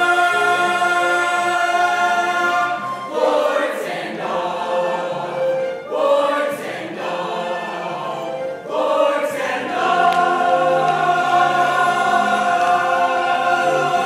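Cast singing a musical-theatre number together over accompaniment, holding long notes at the start and again from about nine seconds in, with shorter, choppier phrases and a few sharp hits in between.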